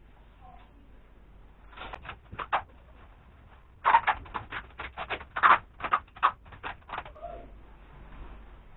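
Shiny black plastic coat crinkling and crackling as it is pulled and adjusted around the wearer's shoulders and arms: a few crackles about two seconds in, then a quick irregular run of sharp crinkles from about four to seven seconds in.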